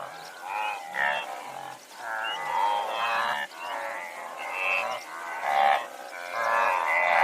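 A herd of wildebeest calling over one another: many overlapping, cattle-like grunting calls following each other with hardly a gap.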